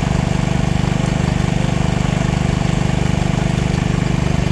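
Fishing trawler's diesel engine idling with a steady, fast, even throb.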